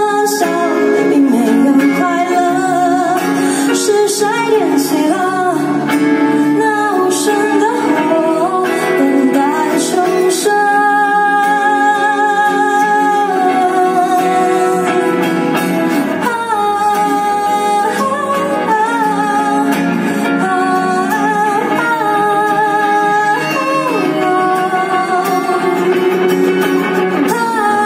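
Live pop song played over the stage speakers: a woman singing over strummed acoustic guitar and electric guitar.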